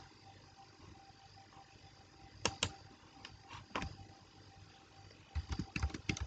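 Computer keyboard keystrokes over faint room hiss: two quick clicks about two and a half seconds in, a single one near four seconds, and a short run of typing near the end.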